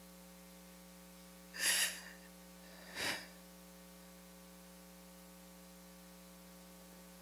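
A woman's two short, breathy gasps, about a second and a half and three seconds in, the second one softer, over a steady electrical mains hum.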